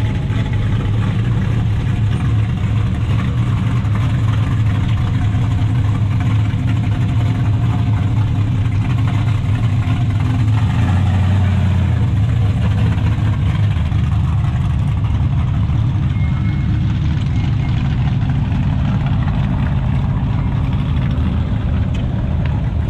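Car engines running with a steady low rumble as classic cars drive slowly past one after another, loudest about eleven seconds in.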